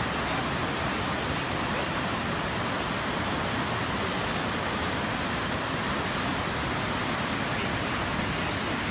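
Whitewater rapids rushing steadily, a dense, even wash of water noise with no breaks.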